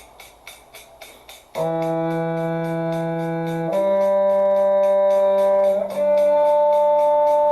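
Cello playing a slow shifting drill in long, steady notes: E, then G about two seconds later, then a shift up the D string to a ringing D harmonic. A faint, regular ticking runs underneath.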